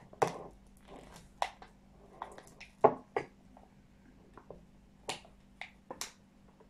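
Packaging of an instant drink-powder sachet crinkling and crackling in short, irregular bursts as it is squeezed and shaken over a mug to empty the last of the powder.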